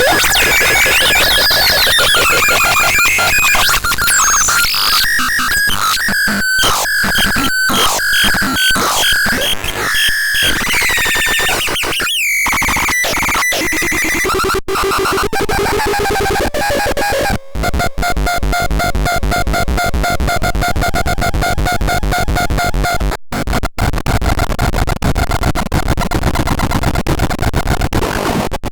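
Synthesizer making harsh electronic sounds: gliding tones that swoop up and down, then rapid chopped repeated notes and a quick falling sweep about twelve seconds in. From about seventeen seconds it turns into a fast, steady pulsing buzz.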